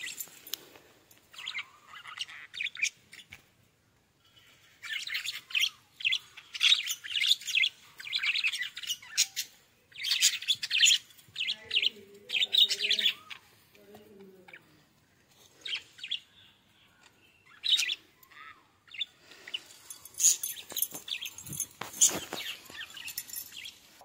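Budgerigars chirping and chattering, in bursts of rapid high chirps with short pauses between.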